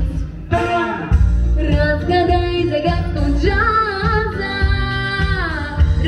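A girl singing into a microphone over a backing track with a steady beat; her voice comes in about half a second in and holds a long note that slides down near the end.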